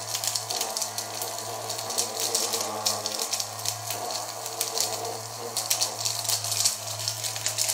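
Small battery-powered DIY vacuum cleaner running: its little motor and fan hum steadily with a rush of air. Scraps of paper are sucked into the plastic bottle and tick and rattle against it.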